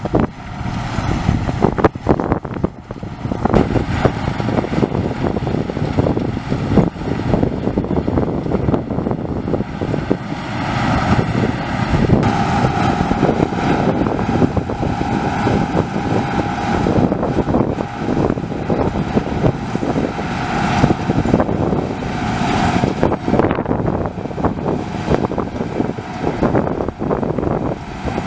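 Deutz-Fahr 4068 HTS combine harvester running while harvesting barley: a loud, dense mechanical din with wind on the microphone. A steady whine comes in about halfway through and holds for about ten seconds.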